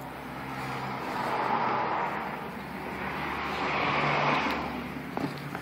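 Road traffic passing by: two vehicles go by in turn, each a rising and fading rush of noise, the first peaking about a second and a half in, the second about four seconds in.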